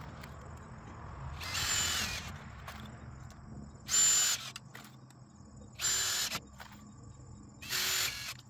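Cordless drill driving screws: four short bursts of the motor whining, about half a second each and roughly two seconds apart.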